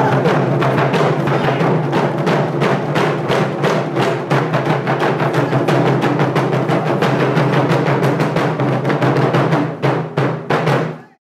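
Taiko drum ensemble playing a fast, dense rhythm of strikes on barrel-shaped drums, thinning to a few separate hits near the end and then stopping abruptly.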